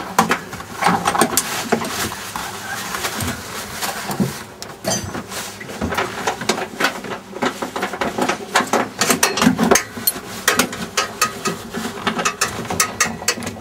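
Irregular clicks, knocks and rattles of hands and tools working inside a race car's cockpit around the seat harness and wiring, densest near the end.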